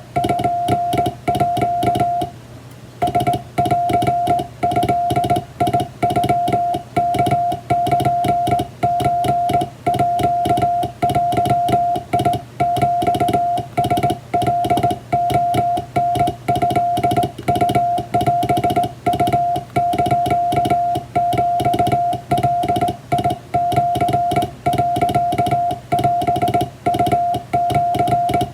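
Morse code sent by hand on a vertical straight key: a steady mid-pitched beep keyed into short and long elements, spelling out Japanese wabun telegram text. There is a brief pause a little after two seconds in.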